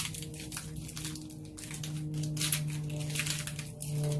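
Wrapped candy and plastic lei netting crinkling and rustling in irregular strokes as they are handled, over a faint steady hum.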